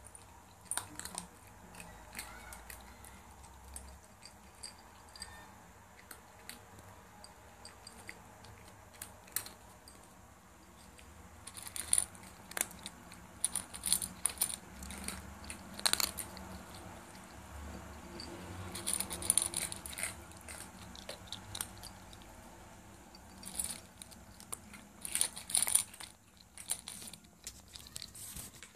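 Cat crunching dry kibble from a metal bowl: irregular sharp crunches that come in dense clusters in the second half.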